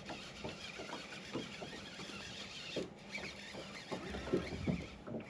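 Fishing reel being cranked against a hooked bass, whirring and clicking in short irregular bursts as the fish pulls on the line.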